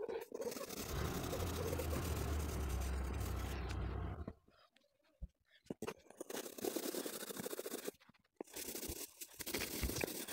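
Coloured pencil scratching and scraping across paper as it shades, in uneven stretches broken by abrupt gaps. A low rumble runs under it for a few seconds near the start.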